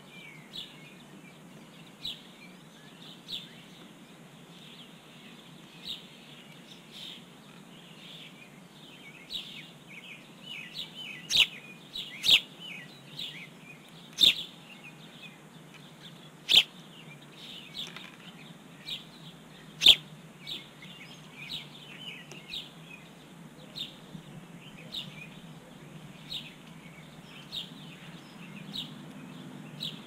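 Small songbirds chirping, short high chirps repeating about once a second. Between about eleven and twenty seconds in, five sharp taps stand out as the loudest sounds.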